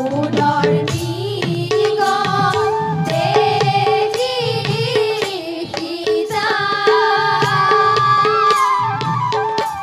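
Assamese devotional folk music: a bamboo flute melody over quick strokes on a barrel drum, with women singing along.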